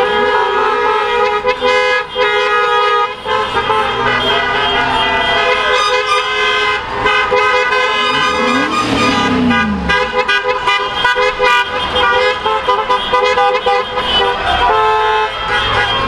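Several car horns honking in long and short overlapping blasts as a line of cars drives slowly past, with engine and tyre noise underneath.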